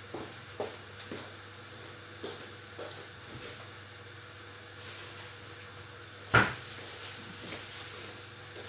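A kitchen cupboard door shutting with a sharp clunk about six seconds in, among a few faint small knocks. Under it runs a low steady sizzle of onions frying in oil in a pot on the stove.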